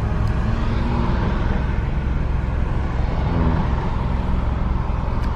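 Subaru BRZ driving at a steady pace, heard from inside the cabin: a low, even rumble of road and engine noise.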